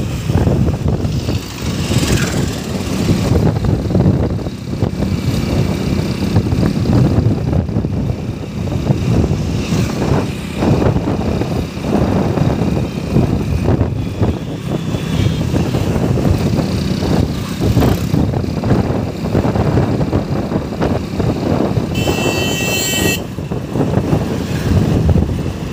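Wind buffeting the microphone and engine and road noise of a moving motorcycle, a steady low rumble. A high tone sounds for about a second near the end.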